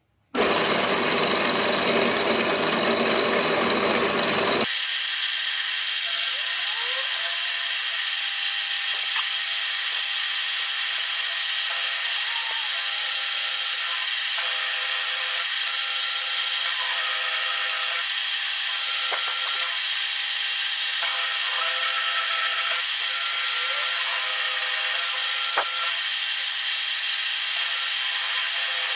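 Power tool running steadily as it machines a piece of steel angle iron. About five seconds in, the sound changes abruptly: the low rumble drops out and a steady, higher-pitched hum remains.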